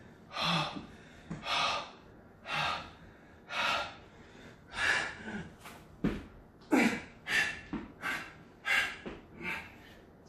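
A man breathing hard from exertion, with loud gasping breaths about once a second that quicken to roughly two a second in the second half as he works through burpees and push-ups.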